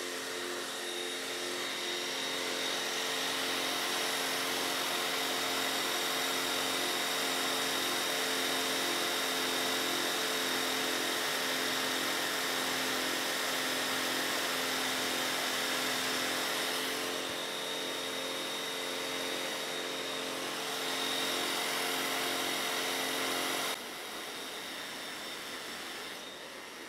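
Belt sander running steadily as the end grain of stool legs is pressed against its belt, sanding the legs down to their pencil lines to level the stool. The sound drops abruptly near the end.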